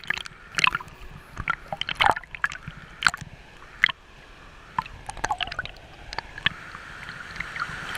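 Sea water sloshing and gurgling around a waterproof action camera held at the waterline, with irregular sharp slaps and splashes as small waves wash over the housing.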